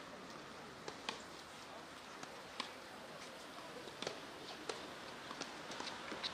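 Tennis balls struck with rackets during a rally: sharp single knocks about every second and a half, then coming closer together near the end, over a steady low background hiss.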